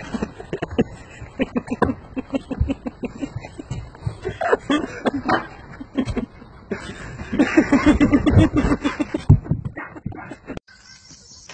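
People laughing hard in quick repeated bursts, mixed with a few words. The laughter is loudest about three quarters of the way through.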